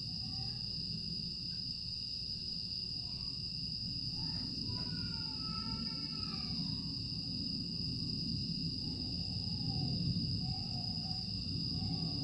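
A night chorus of insects (crickets and other grass insects), a steady high-pitched buzzing trill that never lets up, over a low background rumble. A few faint gliding calls sound near the middle.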